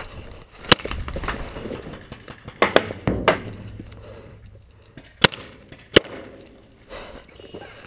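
Paintball fire: about six sharp cracks, one near the start, three close together around three seconds in, and two more near the end.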